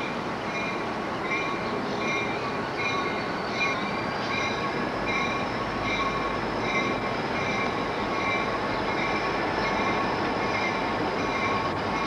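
Approaching CSX diesel freight locomotives running steadily, with a grade-crossing bell ringing about one and a half times a second over the train noise.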